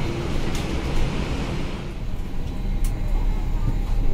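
Steady low rumble and hiss of a parked Boeing 737 MAX 8 airliner during boarding. The hiss fades about two seconds in as the cabin is entered, and there are a few light clicks.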